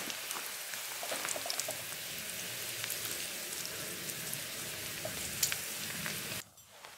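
Bacon frying in a pan: a steady sizzle with scattered sharp crackles, which cuts off suddenly near the end.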